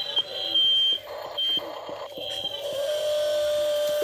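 Radio-controlled toy construction machines working: short high-pitched electronic beeps repeat at uneven intervals over a steady electric hum, with small clicks. The hum settles into a single steady whine for about the last second.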